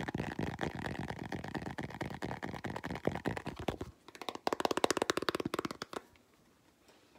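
Fingernails tapping and scratching fast on a plastic container with a purple lid: a dense run of clicks, a short break about four seconds in, then a second quick, louder run.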